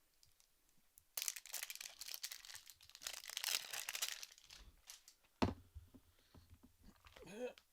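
Toy packaging being crinkled and torn open by hand for about three seconds, then a single sharp knock.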